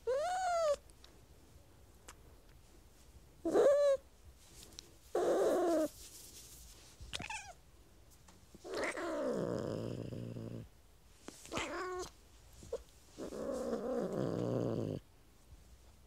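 A cat growling in a series of about seven separate calls with short pauses between them. Most are under a second and rise and fall in pitch; two longer ones of about two seconds come in the second half.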